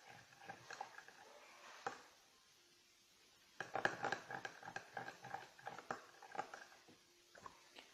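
A utensil clicking and scraping against a bowl while glue and shaving foam are stirred together for fluffy slime. There is a lull of about a second and a half in the middle.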